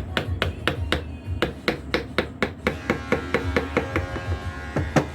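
Hammer tapping in a quick, even rhythm, about four blows a second, each strike with a short ring.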